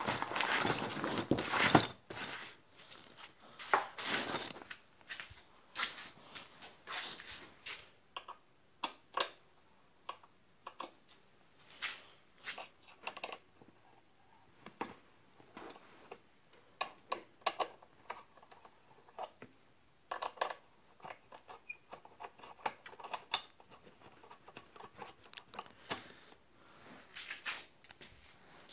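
Rustling and clatter of bags and gloves being shifted while a hex key is searched for, then a long run of small, scattered metal clicks and taps as the hex key is fitted to and turned on a bolt in the motorcycle's bodywork.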